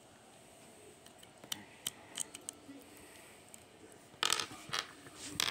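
Handling of small plastic Kinder Surprise toy parts during assembly: a few light clicks and taps, then two short rustling scrapes about four seconds in and another near the end.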